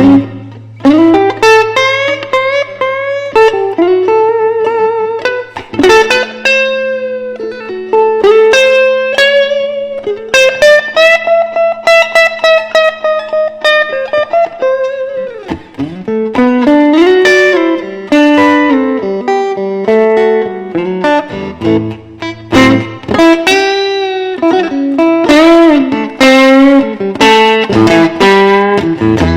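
Electric guitar playing an instrumental blues solo. Picked single notes with string bends run over low notes held underneath. A long bent note rises and falls about halfway through.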